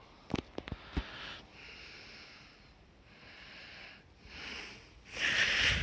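A person breathing in and out close to the microphone, in soft swells of breath noise, the loudest near the end. A few faint clicks of handling sound in the first second.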